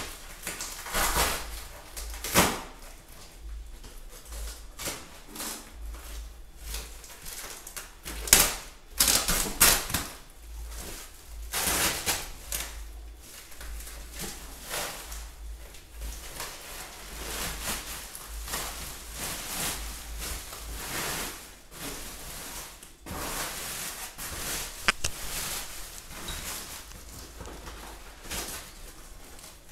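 Plastic parcel wrapping and a woven polypropylene sack being pulled open and handled by hand, rustling and crinkling in irregular bursts, loudest about eight to ten seconds in.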